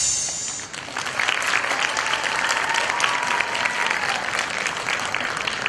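Audience applauding, a dense steady clapping that swells in under a second in as the last note of the music dies away.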